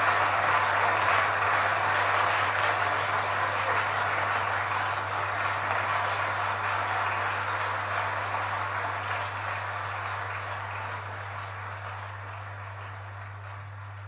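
Recorded applause at the end of a song, played back through a single-ended EL34 tube amplifier and PSB Image B6 speakers, fading out gradually over a steady low hum.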